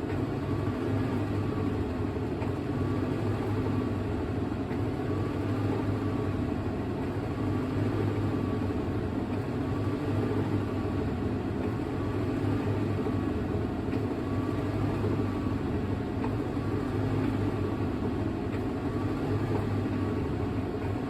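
Hitachi NW-5WR 5 kg fully automatic washing machine in its spin-dry cycle: a steady low hum from the spinning tub and motor, with a faint higher tone that rises and falls about every second and a half.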